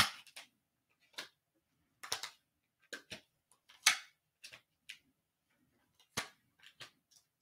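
Tarot cards being handled on a table: about ten irregular light clicks and soft rustles as cards are slid and laid down.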